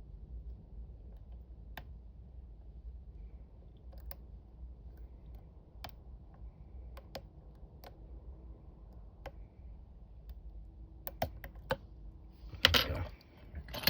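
Sparse light metallic clicks of a lock pick and tension wrench working the pins of a small Triangle padlock held in a vice. About a second before the end comes a louder clattering rattle as the padlock is picked open.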